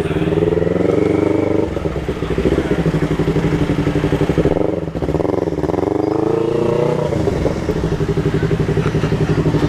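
Yamaha MT-03 engine running through a Jeskap aftermarket exhaust with the dB killer removed, while riding. The revs climb and then drop back twice, once near the start and again in the second half.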